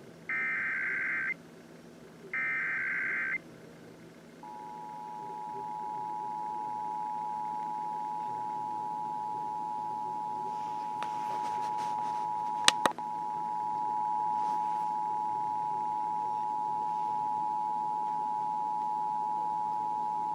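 Emergency Alert System header: the last two screechy digital data bursts, about a second each, then from about four seconds in the steady two-tone EAS attention signal (853 and 960 Hz), which runs on unbroken. It opens a Required Monthly Test alert. A single sharp click cuts across the tone a little past the middle.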